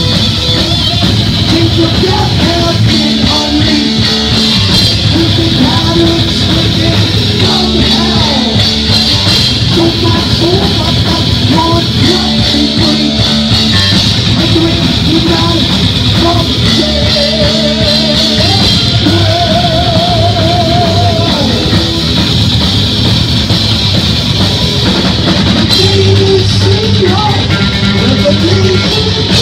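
Heavy metal band playing live: distorted electric guitar, bass guitar and drum kit, loud and steady. A lead guitar line with fast trills comes in about two-thirds of the way through.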